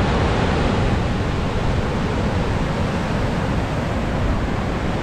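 Heavy ocean swell surging and breaking against rocky sea cliffs, a steady rush of surf mixed with wind buffeting the microphone.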